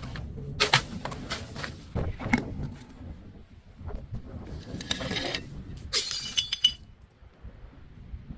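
Glass being broken and crushed: a run of sharp cracks and crunches, then a burst of shattering with high ringing tinkles about six seconds in that stops suddenly.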